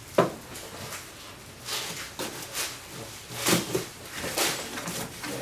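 Cardboard shipping box being slit open with a box cutter and its flaps pulled back: a sharp knock just after the start, then several short rasping swishes of tape and cardboard.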